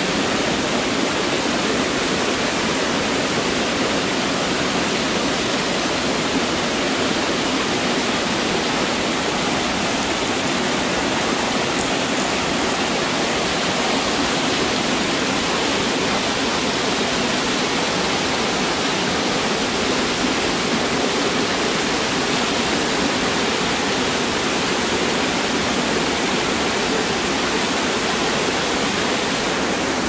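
Waterfall: a steady, unbroken rush of falling water, even in level throughout.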